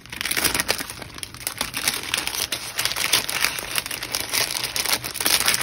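Plastic packaging bag crinkling and crackling as it is handled and pulled open.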